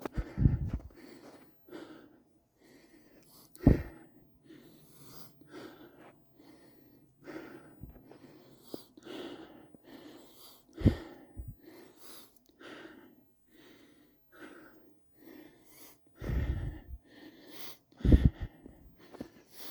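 Footsteps crunching through snow in a broken, uneven rhythm, with a few louder low thumps along the way.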